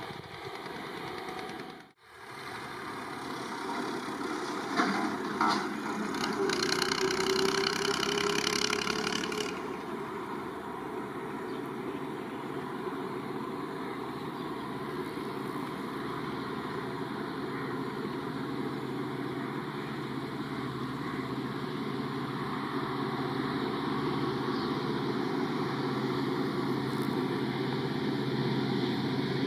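EMD diesel locomotive engine running with a steady low hum. A louder rushing stretch of a few seconds comes near the start, then the hum carries on and grows slightly louder toward the end.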